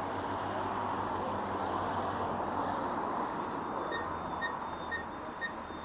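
Street traffic noise from passing cars. About four seconds in, a pedestrian crossing signal starts giving short high beeps about twice a second as the walk light turns green.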